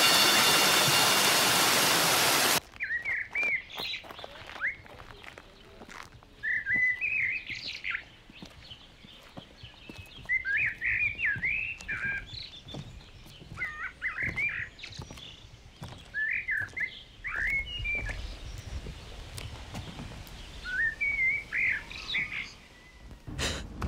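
A waterfall rushing as a loud, even roar for the first couple of seconds, then cut off abruptly. After it a songbird sings short phrases of high warbling chirps, one every two seconds or so.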